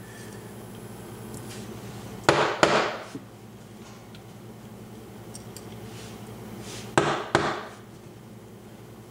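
A BEST cam lock being knocked to shake its pins out, giving two sharp double knocks about five seconds apart.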